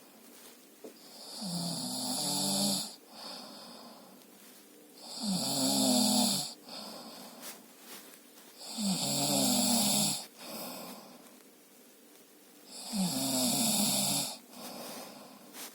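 A man snoring in his sleep: four loud snores, about one every four seconds, each followed by a shorter, softer breath.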